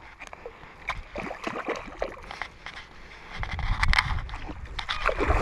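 A hooked fish being reeled in through the shallows: water sloshing and splashing, with quick clicks and scrapes from the reel and tackle. A low rumble comes in about three and a half seconds in.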